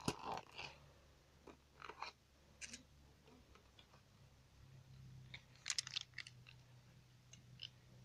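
Packaging being handled: quiet crinkles and clicks of a small cardboard box and its clear plastic insert as a fidget cube is unpacked, with a busier run of crackles about two-thirds of the way through.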